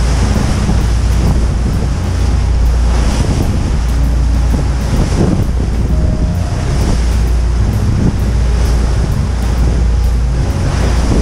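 Wind buffeting the microphone on a moving tour boat, over a steady low rumble from the boat's engine and the sound of waves and water rushing past the hull.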